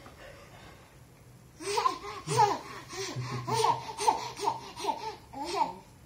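An 11-month-old baby laughing in a run of about ten quick, high-pitched bursts, starting a little over a second and a half in and stopping just before the end.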